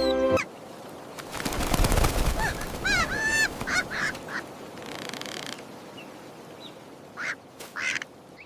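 Music cuts off, then a brief rush of noise and a run of cartoon duck quacks about two to four seconds in. Two short high calls follow near the end.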